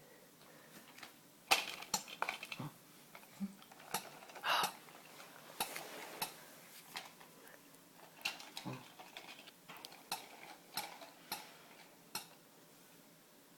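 Irregular light clicks and knocks of small hard objects being handled, scattered with quiet stretches between.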